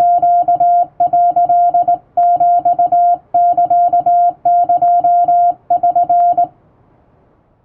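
Morse code hand-sent on a straight telegraph key, heard as a single steady beep switched on and off in dashes and dots, spelling out Japanese Wabun Morse characters in groups with short gaps between them. The sending stops about six and a half seconds in, leaving a faint fading hiss.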